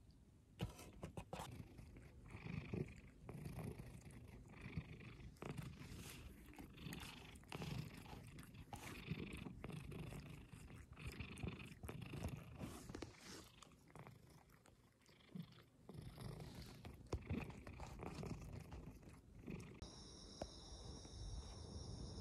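Domestic cat purring close to the microphone, a low rhythmic rumble with soft rustles and clicks of fur being handled. Near the end it gives way to a steady high chirring of insects.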